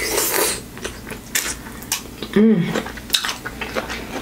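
Close-miked eating of saucy shrimp by hand: a wet sucking on the fingers at the start, then sharp smacking clicks of chewing. A short hummed "mm" comes about halfway through.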